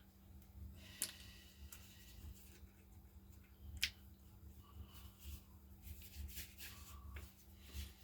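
Faint clicks and taps of small impact-driver parts being handled and fitted, with two sharper clicks about a second and four seconds in and a run of lighter ones near the end, over a steady low hum.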